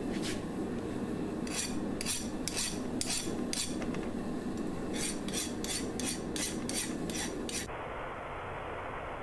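Hand file scraped in short strokes across a freshly quenched steel knife blade, a file test of whether it hardened: a run of about five strokes, then about eight quicker ones. Near the end it gives way to the steady hiss of a belt grinder on the blade.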